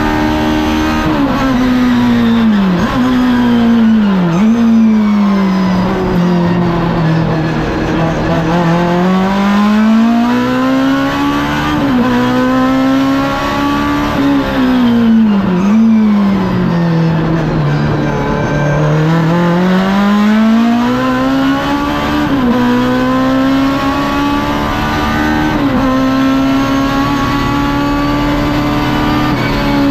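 BMW 320i Group 5 race car's engine heard from inside the cockpit, driven hard. Its pitch climbs under full throttle, drops sharply at several quick upshifts and sweeps down and back up as the car slows for bends and accelerates out again.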